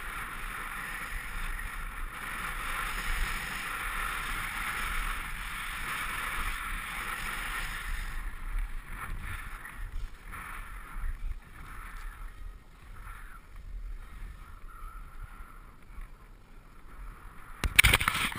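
Skis hissing and scraping over snow during a downhill run, mixed with wind on the microphone. The hiss is steady for the first half, then softer and uneven, and a brief loud burst of noise comes near the end.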